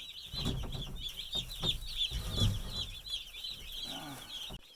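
A brooder full of about a hundred day-old meat chicks peeping continuously in a dense high chorus. Low thumps and rustling of movement sound under it through the first few seconds.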